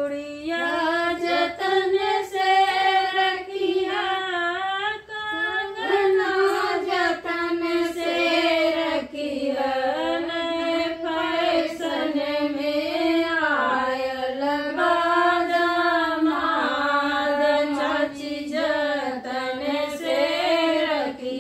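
Women singing a traditional wedding folk song (shaadi ka geet) together, with a long-held, gently rising and falling melody.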